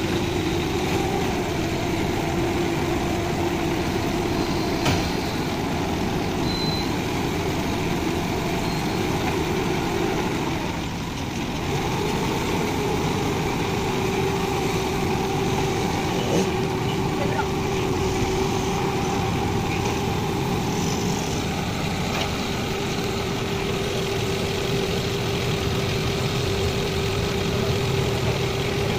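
Heavy truck's diesel engine idling steadily, with a few small clicks over it.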